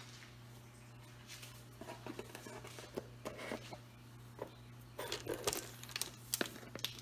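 Faint rustling, crinkling and light clicks of kitchen packaging and containers being handled while more salt is fetched, busiest in the second half, over a steady low hum.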